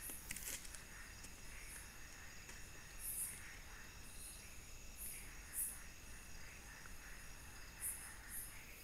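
Night-time forest insect chorus: a steady high drone of crickets with short, very high chirps every second or two.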